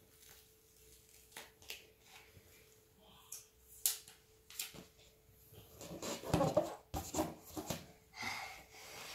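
Light rustling and tapping of hands handling clear plastic packaging and sticker sheets and pressing a sticker onto an inflated latex balloon, in scattered short clicks that bunch up and get louder about six seconds in. A faint steady hum runs underneath.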